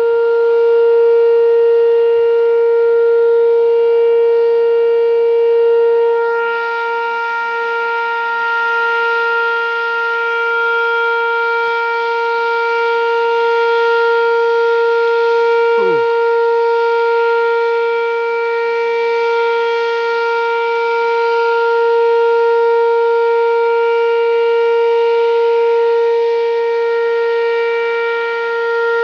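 Whelen 2805 electronic outdoor warning siren sounding its Alert signal: one loud, steady, unbroken tone held throughout, swelling and fading a little in loudness.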